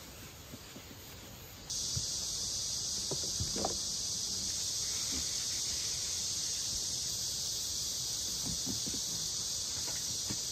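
Steady high-pitched drone of insects, typical of a summer cicada chorus, starting suddenly about two seconds in. A few faint soft knocks come from the plastic box being handled and wiped.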